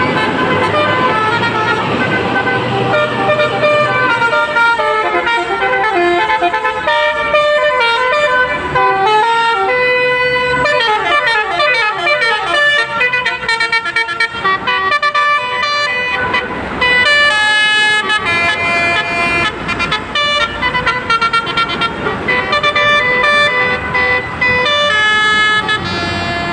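Basuri telolet multi-tone bus horn playing a tune: a long run of quick notes at shifting pitches, with sweeping up-and-down glides a little before the middle.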